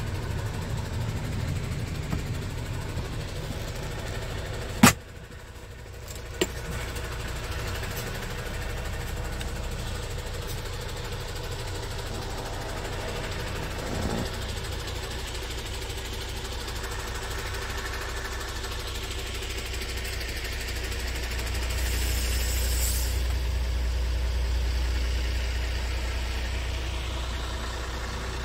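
Scania G500's 13-litre straight-six diesel idling, heard from inside the cab as a steady low hum that grows a little louder about two thirds of the way through. A sharp click about five seconds in, and a smaller one a second and a half later.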